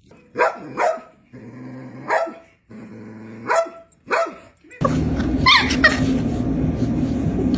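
A dog barks sharply several times with low growls in between. About five seconds in, a loud steady hum takes over, with a few high yips over it.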